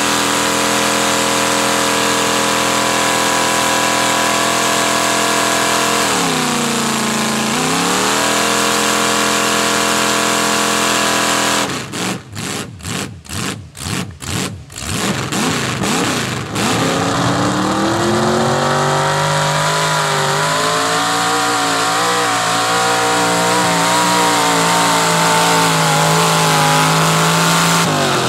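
Mud-bog truck's engine held at high revs while stuck in deep mud. About six seconds in the revs sag and climb back. Around the middle they pulse on and off about twice a second for several seconds, then the engine runs lower with wavering revs.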